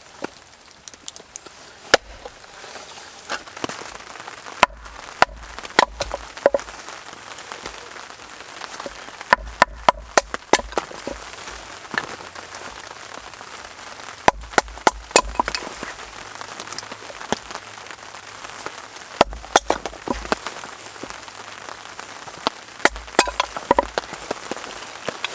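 Wet firewood being chopped and split by hand. The sharp strikes come in groups of several every few seconds, splitting the soaked logs down to the dry wood inside. Steady rain hisses underneath.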